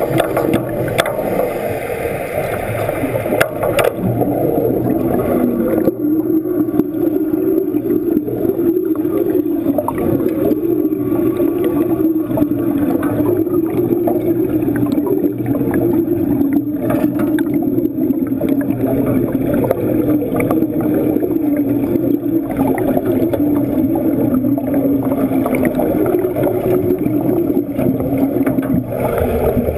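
Underwater wet-welding arc heard through the water: a steady low buzzing hum with fine crackling and bubbling that stops near the end.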